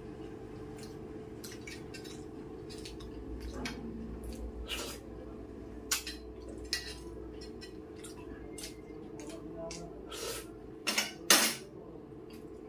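A stainless-steel spoon clinking and scraping against a steel bowl and plate during a meal, in scattered sharp clicks. The loudest clinks come about six seconds in and again near the end, over a steady low hum.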